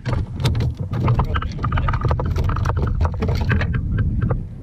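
Rapid clatter of knocks and rattles as a freshly landed Spanish mackerel and tackle are handled against a plastic Hobie Pro Angler fishing kayak, over a steady low wind rumble. The knocking thins out near the end.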